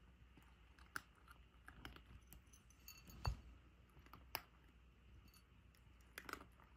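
A cat crunching dry kibble: faint, scattered crunches and clicks, the sharpest about three seconds in.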